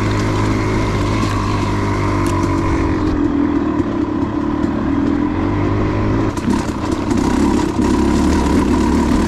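KTM 300 two-stroke dirt bike engine running under way, its pitch rising and falling with the throttle. There is a brief drop about six seconds in before it picks up again.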